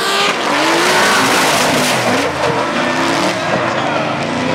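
Two drift cars sliding in tandem: their engines revving up and down over loud, continuous tyre squeal.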